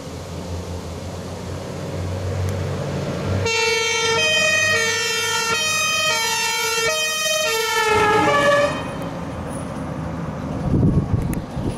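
A German fire engine's compressed-air two-tone horn (Martinhorn) sounding its alternating high-low signal for about four seconds, its pitch sliding down as it is shut off. Before and after it, the fire truck's engine rumbles as it drives by.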